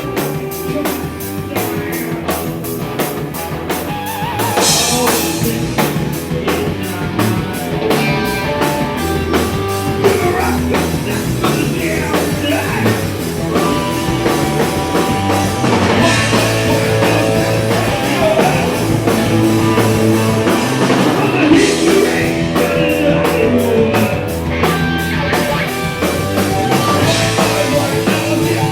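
Rock band playing live: electric guitar, bass and drum kit with steady cymbals, growing louder about four seconds in.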